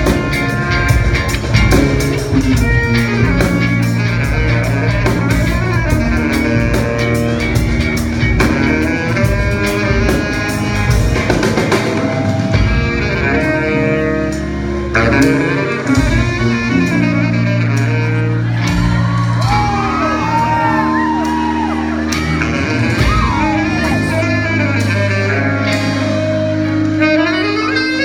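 A live rock band playing: electric guitars, electric bass and drum kit, with a saxophone. A run of bending, gliding notes comes in about two-thirds of the way through.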